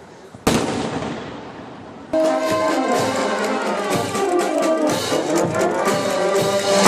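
A single firework bangs about half a second in and fades away. About two seconds in a brass band starts playing, horns over a steady drum beat.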